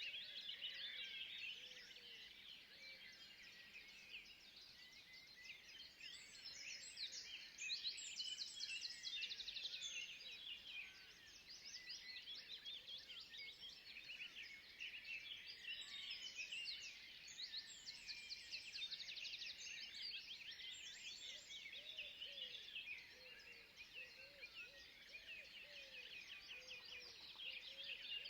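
Forest bird chorus: many small birds chirping and trilling at once, steady and faint, with busier bursts of calls about a quarter and two thirds of the way through.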